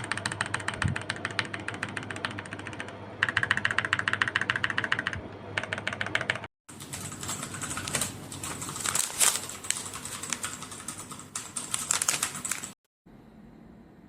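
Outemu mechanical keyboard switches being typed on, a fast run of clicking keystrokes in spliced takes that break off sharply twice. It is loudest around the middle of the first take. The typing stops about a second before the end, leaving a faint hiss.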